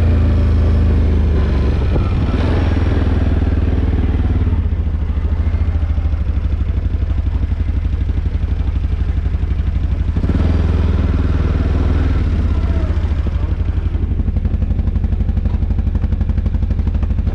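ATV (four-wheeler) engine running while riding, a steady low drone. It eases off a little about four seconds in and picks up again about ten seconds in.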